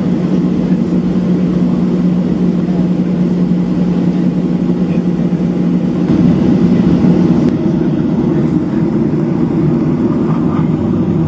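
Boeing 737-700 taxiing, heard inside the cabin: a steady hum from its CFM56-7 turbofan engines at low power, swelling slightly about six seconds in.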